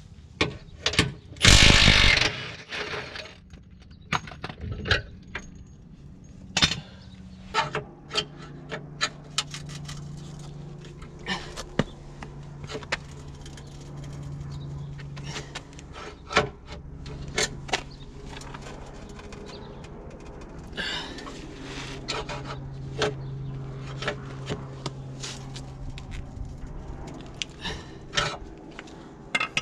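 Cordless impact wrench hammering for about a second near the start as a Fiesta's front wishbone is undone, followed by many sharp metallic clinks and knocks of tools and suspension parts being handled. A steady low hum runs underneath from about eight seconds in.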